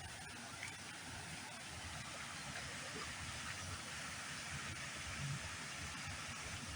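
Steady rush of flowing water, an even hiss with a low rumble beneath, swelling slightly toward the end.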